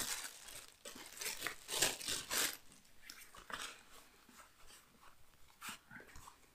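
Clear plastic packaging bag crinkling and rustling as a fabric carrying pouch is pulled out and handled. The rustling is densest over the first two and a half seconds, then comes in scattered softer bursts.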